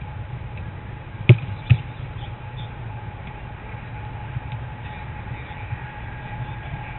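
Two sharp knocks close together about a second and a half in, most likely a football being kicked. They sit over a steady low rumble and a faint steady tone.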